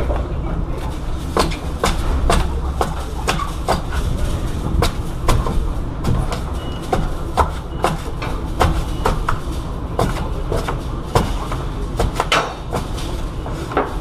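Repeated sharp metal knocks, irregular at about two a second, from hand-tool work with a hammer on the rear corner post of a refrigerated trailer, over a steady low rumble.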